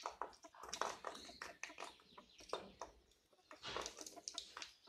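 Birds chirping: many short, sharp calls in quick succession, with a brief lull about three seconds in.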